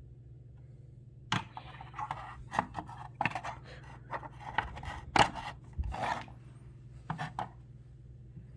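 Handling noises: a string of clicks, scrapes and rubbing that starts about a second in and stops near the end, over a steady low hum.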